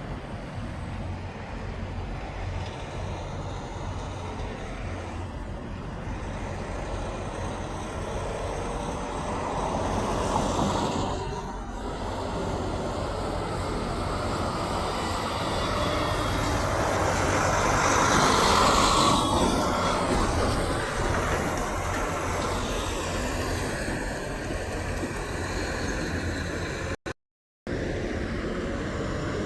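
Road traffic with trucks and cars driving past, swelling louder about ten seconds in and again, loudest, around eighteen seconds in. The sound cuts out for about half a second near the end.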